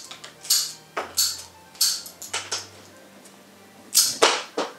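Ikebana scissors snipping cherry twigs: a series of short, sharp cuts, several in the first three seconds and a quicker, louder cluster near the end.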